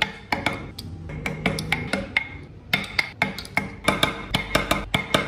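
Background music with a quick clicking, wood-block-like percussion beat over soft sustained notes.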